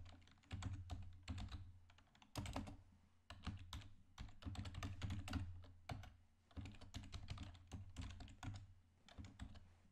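Typing on a computer keyboard: quick runs of key clicks with short pauses between them.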